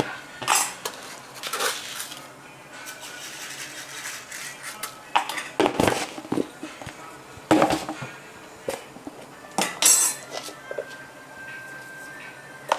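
Kitchen clatter from steel utensils, pots and dishes being picked up, knocked together and set down, in irregular clinks and clanks, a few of them ringing briefly.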